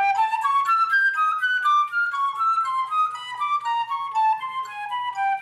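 Concert flute playing a fast passage of short, separated notes, the line winding gradually downward in pitch.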